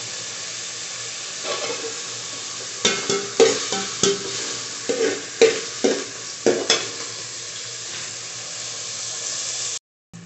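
Chopped onions and green chillies sizzling steadily in hot oil in an aluminium pot, frying until golden. For a few seconds in the middle a steel spoon stirs them, clinking and scraping against the pot about eight times. The sound cuts out briefly just before the end.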